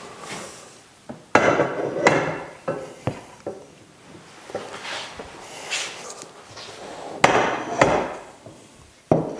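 Metal raft frame tubes and bars clanking and knocking as they are lifted, set down and shifted on the frame of an inflated raft, a handful of sharp knocks with a short ring. The loudest come about a second and a half in and again about seven seconds in, with quieter rubbing and handling between.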